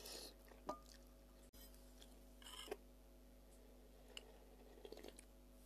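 Faint eating sounds of instant noodle soup: a short slurp as noodles are drawn off a fork at the start, soft chewing, and sips of broth from the bowl, with a few small clicks.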